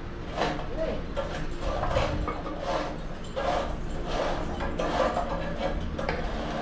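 Stranded copper grounding wire scraping against a metal pipe as it is pushed through by hand, in repeated short rasping strokes about one every three quarters of a second.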